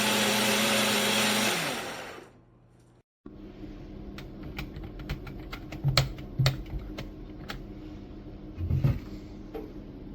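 Jug blender motor running at speed, then switched off about a second and a half in and spinning down. After a short silence come scattered sharp clicks and a few low thumps.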